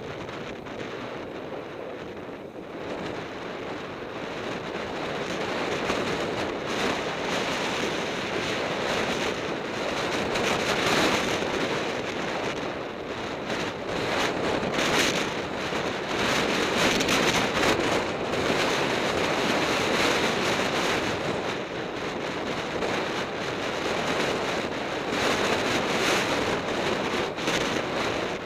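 Wind buffeting the microphone of a camera on a fast downhill run, a gusty rushing that grows louder over the first several seconds as speed builds and then surges and eases.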